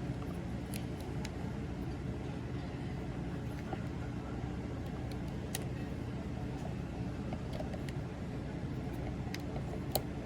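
Small scattered clicks of plastic toy-figure parts being moved and snapped, with one sharper click near the end, over a steady low background hum.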